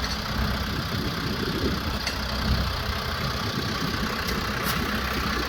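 Branson F50 compact tractor's diesel engine running steadily while the backhoe hydraulics push the arm down to lift the tractor's side. A couple of light clicks come near the end.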